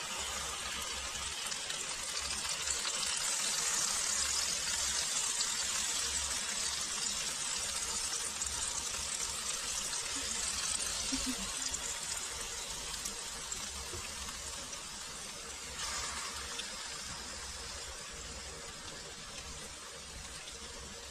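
Tomato and other chopped ingredients sizzling in hot oil in a cooking pot, a dense hiss that builds over the first few seconds and then slowly dies down.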